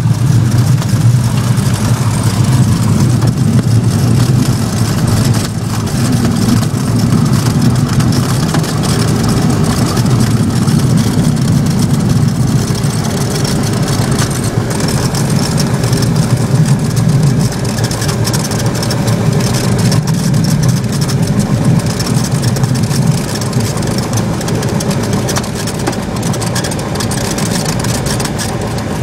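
Single-engine Cessna's piston engine and propeller running in a steady low drone, heard inside the cockpit as the plane rolls along the runway and turns off. It gets a little quieter over the last few seconds.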